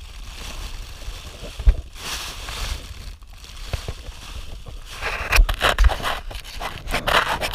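Foil emergency blanket and plastic sheeting crinkling and rustling as they are handled right by the camera, with a few low knocks; the crinkling gets louder and denser over the last couple of seconds.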